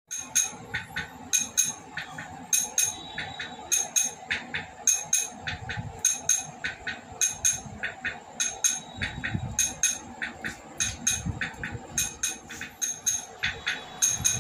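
Rhythmic metallic clinking strikes, mostly in close pairs about once a second, over a faint steady hum.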